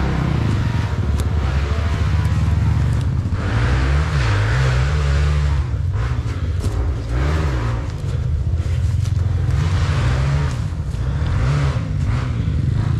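Enduro dirt bike engine revving up and down again and again as the throttle is worked, with a few knocks and rattles mixed in.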